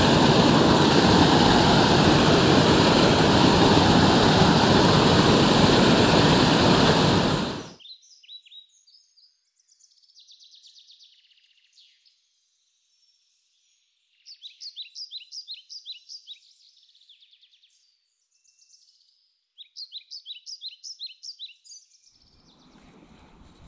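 Small waterfall pouring into a creek pool, a loud steady rush that cuts off sharply about eight seconds in. Then songbirds singing over near quiet, with two phrases of quick, high repeated notes and a few scattered chirps, before a faint low rumble comes in near the end.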